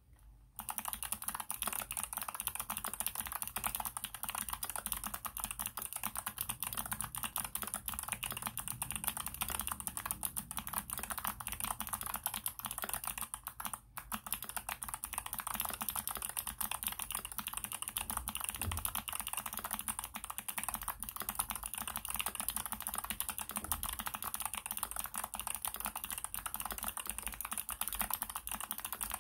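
Fast, continuous typing on a COX Galleon CNC aluminium mechanical keyboard fitted with NovelKeys x Kailh Box Jade thick clicky switches: a dense run of sharp keystroke clicks, starting just after the beginning, with a brief pause about halfway.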